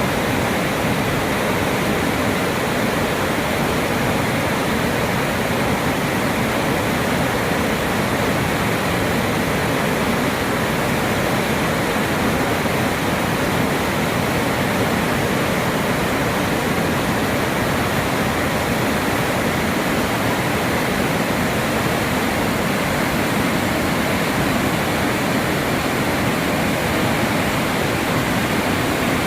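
Mountain valley stream, water rushing in a steady, unbroken rush.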